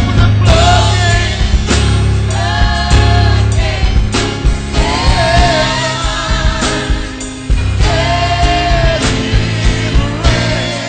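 A gospel praise team singing with full band accompaniment: held, wavering vocal lines over heavy bass and regular drum hits.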